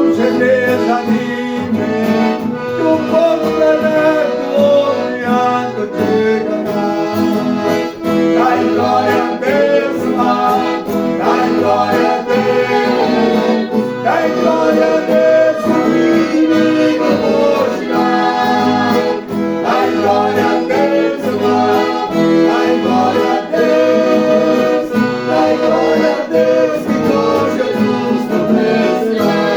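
Accordion (gaita) playing a gospel praise tune, with sustained chords and a steady, rhythmic bass.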